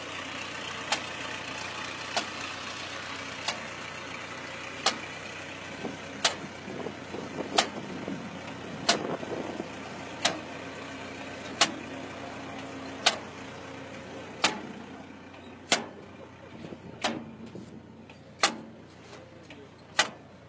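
Tractor engine running steadily behind a mechanical seedling transplanter, with a sharp click about every second and a half from the planter's rotating planting wheel as it cycles.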